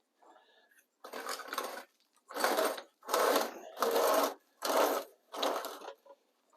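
Saw cutting through a 4x6 wooden beam in even back-and-forth strokes, about six or seven strokes at roughly a stroke and a half a second, in the manner of hand sawing.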